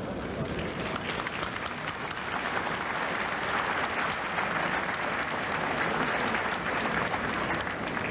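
A large audience applauding, swelling from about two seconds in and easing off near the end.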